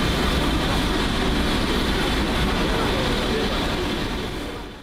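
Crowd chatter over a steady low rumble and hiss, fading out near the end.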